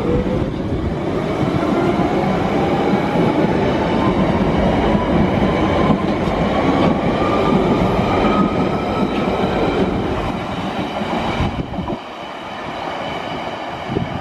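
London Underground 1992 Stock train pulling out of the platform: wheels rumbling on the rails, with a whine that rises steadily in pitch as it picks up speed. The noise drops off about twelve seconds in as the last car clears, and a couple of sharp clicks follow near the end.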